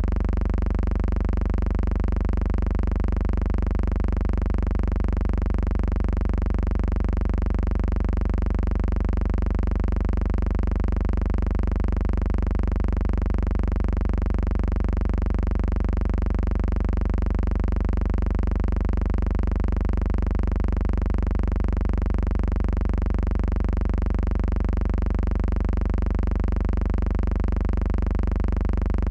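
Steady low hum that never changes, with a faint even pulse about twice a second.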